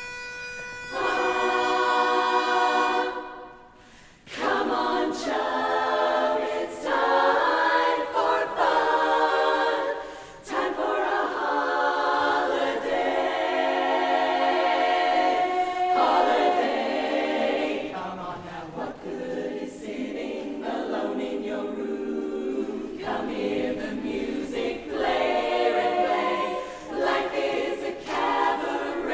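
An a cappella barbershop chorus singing close-harmony chords in phrases with brief breaks between them. A single steady note sounds just before the singing begins, about a second in.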